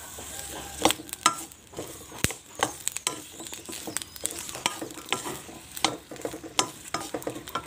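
Wooden spatula scraping and knocking against a metal wok as green chillies, shallots and garlic are stirred while dry-roasting, with a faint sizzle. The knocks come irregularly, several to the second.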